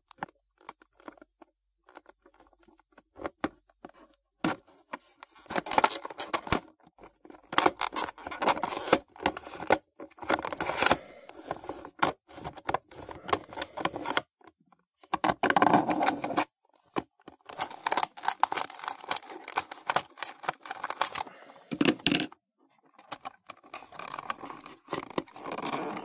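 Clear plastic blister packaging crinkling and crackling under the fingers as it is pried loose from its card backing. It goes in irregular stretches with short pauses, with only scattered light clicks in the first few seconds.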